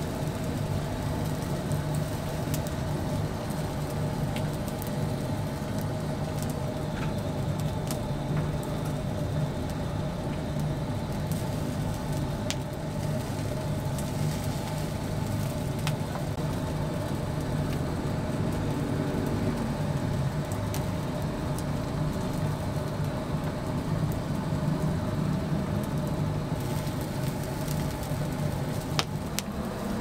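Oak-fired chicken rotisserie running: a steady mechanical hum, with a few sharp crackles from the burning oak.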